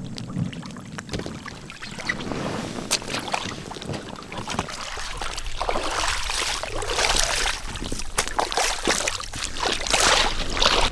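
A kayak paddle dips and knocks in the water as an inflatable kayak comes into the shallows. From about halfway on come repeated loud splashes of feet wading through shallow water.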